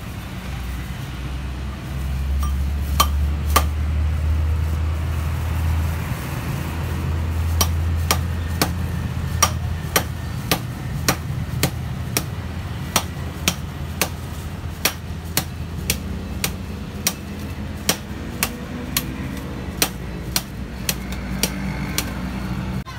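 Ice being chipped and broken up in an insulated cooler with a handheld tool: a run of sharp knocks, a couple at first and then about one and a half a second from roughly a third of the way in. A steady low hum runs underneath.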